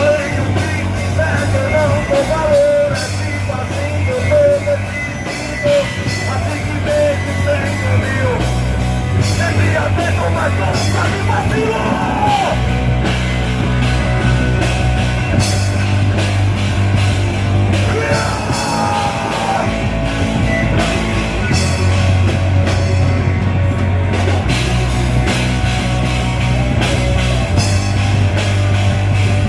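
A rock band playing loud rock music with singing and a heavy bass line.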